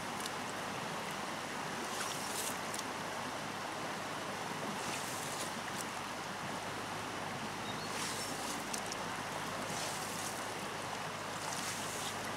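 Steady rush of river water, with several short splashes and sloshes as hands work through a shallow, muddy pool to catch fish by hand.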